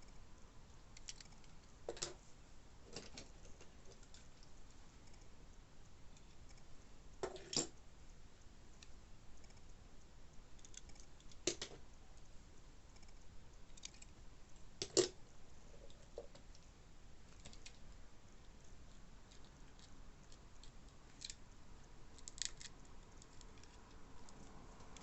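Scattered small clicks, taps and light rustling of small diecast toy cars and their packaging being handled, with a handful of sharper knocks, the loudest about fifteen seconds in.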